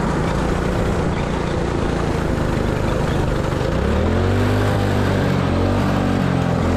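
Go-kart engine running as the kart is driven around the track. About four seconds in, the engine note climbs as the revs rise, then holds high.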